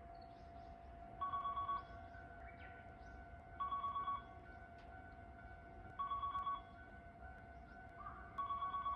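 Station train-approach warning ringer sounding in short bursts of rapid electronic ringing, four times about every two and a half seconds, beginning about a second in: a train is about to pass through the station. Small birds chirp in between.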